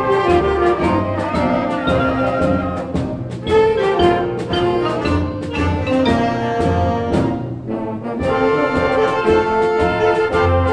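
Concert band playing a holiday piece, with brass such as trumpets and trombones prominent over sustained ensemble notes and frequent percussion strokes.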